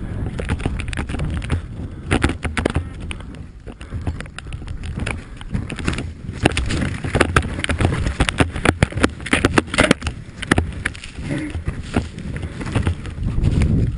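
Wind rumbling on a snowmobile-mounted camera's microphone, with many sharp knocks and thumps as the sled bounces through snow and crashes, thickest from about six seconds in.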